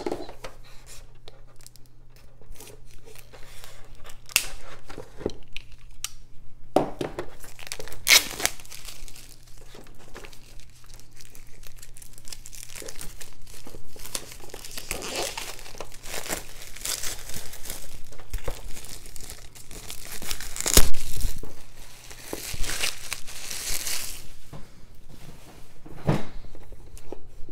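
Cardboard game box and its contents being handled: cardboard and paper rustling, crinkling and scraping, with scattered sharp taps and knocks and one louder burst about three-quarters of the way through.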